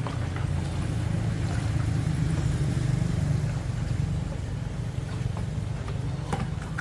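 A steady low mechanical hum that starts abruptly and keeps going, like a motor running.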